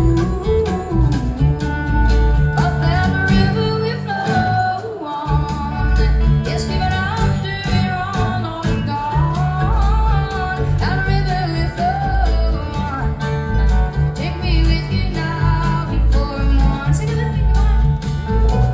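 Live country band playing through a concert PA and recorded from the crowd: a woman sings the melody over strummed acoustic guitar, electric guitar, bass and drums.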